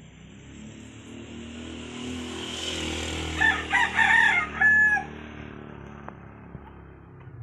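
A rooster crows once about halfway through, a stepped call that ends on a held note. Under it a low rumble swells and fades away.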